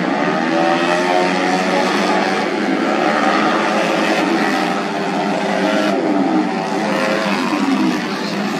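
Tuned 130 cc automatic racing scooters running at high revs, several engines at once, their pitches rising and falling as they go round the track.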